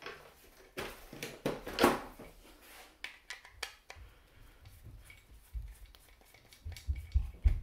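Handling of an airsoft rifle's plastic lower receiver, then a Phillips screwdriver working the screws out of the base of the pistol grip: light clicks and scrapes, with a few low bumps near the end.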